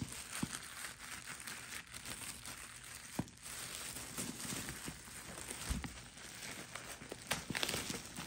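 Clear plastic wrapping crinkling and rustling as it is handled and pulled off a handbag, with a few sharp crackles.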